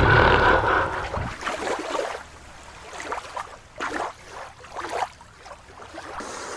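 Water splashing and sloshing as a toy shark is put into the water, loudest in the first second or so, then a few fainter splashes.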